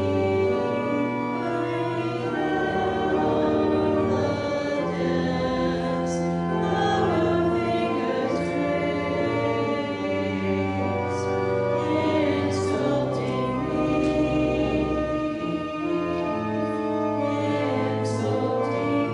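Congregation singing a hymn with organ accompaniment, long held notes over a sustained bass.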